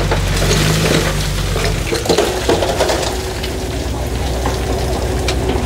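Heavy equipment's diesel engine running low under a dense crackling, crunching noise with scattered sharp clicks; the engine note changes about two seconds in.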